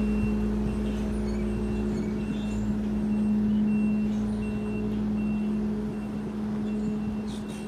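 A large engine running steadily with a low, even hum, with short high chirps repeating about every half second over it.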